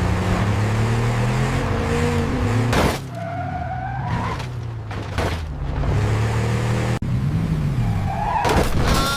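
Cartoon vehicle engine running and revving, its pitch rising and falling, with a few short whooshing or skidding effects over it.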